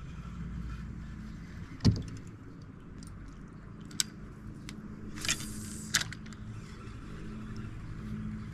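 Several sharp knocks and a short clatter on a kayak, the loudest about two seconds in and three more between four and six seconds, over a steady low hum.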